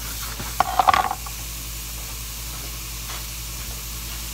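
Sliced mushrooms sizzling in oil in a cast iron skillet, with a metal spatula scraping and clattering against the pan in a short burst about a second in.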